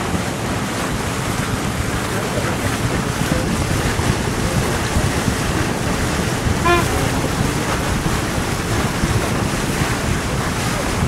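Wind buffeting the microphone over the steady rush of sea water past a moving sailing boat's hull. About two-thirds of the way through there is a brief short tone.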